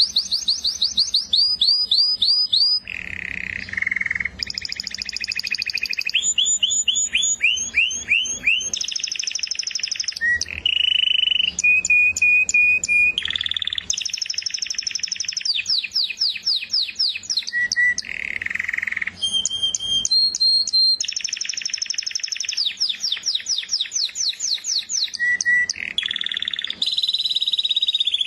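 Domestic canary singing a long, unbroken song of rapid trills: each phrase is a fast run of repeated notes at one pitch, switching to a new pitch and pattern every second or two.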